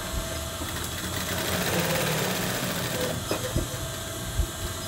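Industrial sewing machine running steadily as it stitches a dart into a fabric panel, with a few light knocks near the end.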